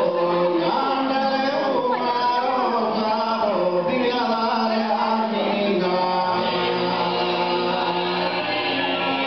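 Sardinian canto a tenore: unaccompanied male voices singing together, a steady low held drone under a moving lead voice.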